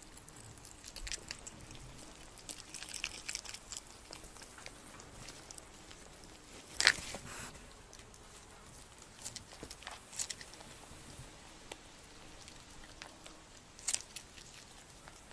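Nutria swimming in shallow water: quiet water sounds with scattered small clicks and patters, and one louder sharp sound about seven seconds in.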